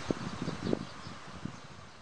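Outdoor ambience: wind buffeting the microphone in irregular low thuds, with faint bird chirps, fading out.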